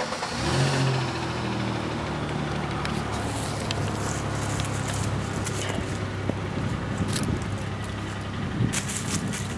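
An engine comes in suddenly about half a second in, then runs steadily with a low, even hum.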